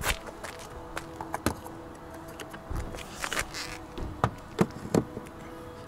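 A steady electrical hum of several tones, with scattered sharp clicks and knocks and a short hiss about three seconds in.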